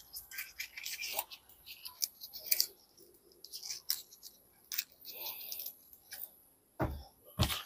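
Fresh taro (gabi) leaves and stalks being torn and snapped by hand as their edges are stripped off: scattered crisp snaps and leafy rustles. A couple of dull thumps near the end.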